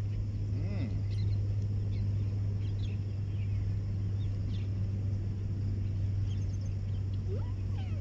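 Outdoor ambience: a steady low hum with faint, scattered bird chirps, and a short rising-and-falling call about a second in and again near the end.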